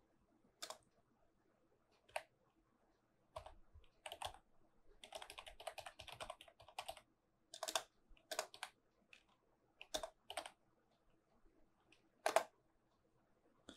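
Computer keyboard typing: faint single keystrokes spaced apart, with a quicker run of keystrokes in the middle and a few more near the end.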